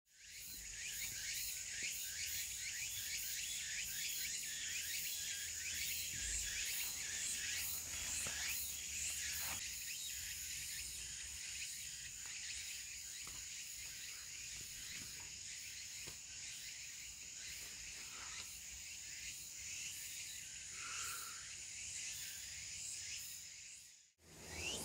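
A chorus of crickets and other insects chirring, with one steady high trill held throughout and rapid chirping around it; it drops out briefly near the end.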